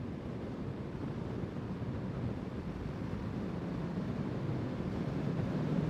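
Steady wind rush over a motorcyclist's helmet-mounted microphone while riding a Honda CBR650R, growing slightly louder toward the end.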